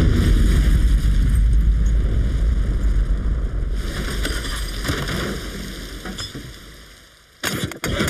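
Cartoon gas-leak explosion sound effect: a deep rumbling blast that slowly dies away over about seven seconds, followed by a few short sharp sounds near the end.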